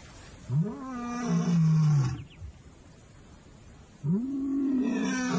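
Male lion roaring: two long roars, each sweeping up in pitch at the start, holding, then dropping lower before breaking off. It is a territorial call announcing the pride males to the neighbourhood.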